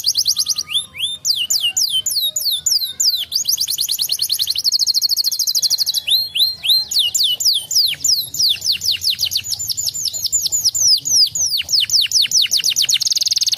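A domestic canary singing continuously and loudly. Trills of very rapid repeated high notes alternate with long runs of separate, downward-sweeping whistles.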